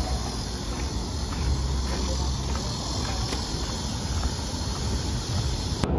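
Steady outdoor street ambience: insects buzzing in the trees over a low, constant rumble.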